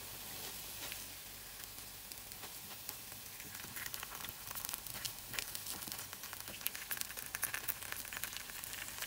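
Paniyaram batter frying in oil in the wells of a kuzhi paniyaram pan: a faint steady sizzle that turns into busier crackling from about four seconds in, as the paniyarams are turned over with a wooden stick.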